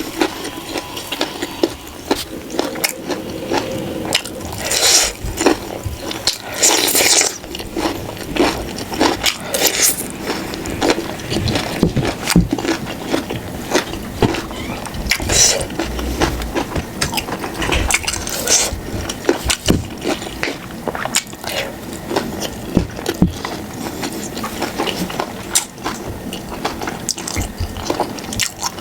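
Close-miked eating sounds: wet chewing and slurping, with irregular crackly clicks and utensil scrapes against the dish.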